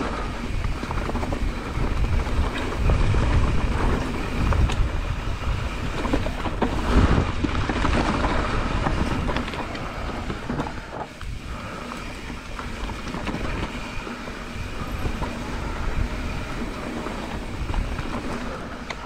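Mountain bike riding fast down a dirt forest trail: a continuous rumble of tyres over dirt and leaf litter, with rattles and knocks from the bike over bumps. It gets somewhat quieter after about halfway.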